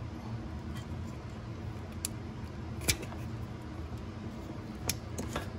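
A few short, sharp plastic clicks from a car's multi-pin wiring harness connector being unplugged and handled, over a steady low hum.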